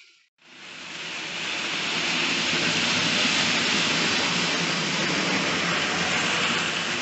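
Hornby OO gauge model train running past on its track, its wheels rolling over the rails with a low motor hum, swelling to a peak about three seconds in and then fading.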